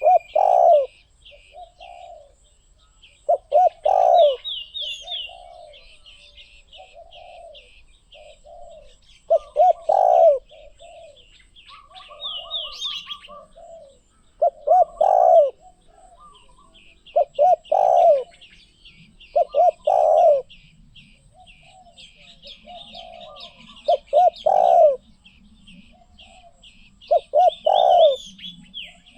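Spotted dove cooing: a repeated phrase of a couple of short notes and a longer rolling coo, about eight times with softer coos between. Other small birds chirp and trill faintly in the background.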